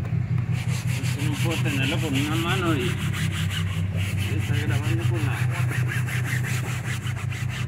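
A car's fabric headliner being scrubbed by hand in quick back-and-forth strokes, a fast rhythmic rubbing, over a steady low hum.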